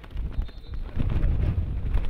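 Wind buffeting the camera's microphone: a low, uneven rumble that grows louder about a second in.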